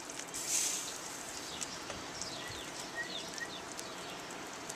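Sausages simmering in beer and onions in a cast-iron skillet, a steady bubbling hiss with small pops and clicks of metal tongs, and a brief louder hiss about half a second in. Birds chirp repeatedly in the background.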